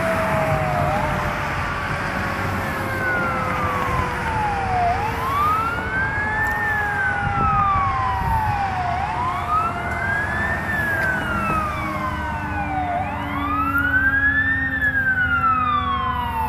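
Fire apparatus siren wailing, rising and falling about once every four seconds. Beneath it a second, lower siren tone slowly sinks in pitch. Road traffic runs in the background.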